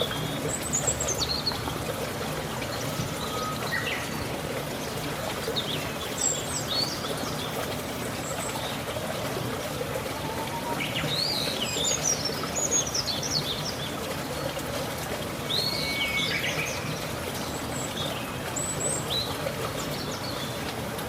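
Wild birds chirping in short high calls every few seconds, busiest in the middle, over a steady sound of trickling running water.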